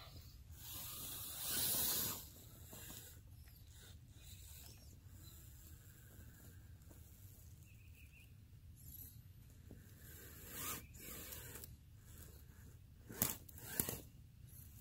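Radio-controlled crawler truck driving over leaf litter and tree roots: faint rustling and scraping, a brief louder hiss about a second and a half in, and a few sharp knocks near the end.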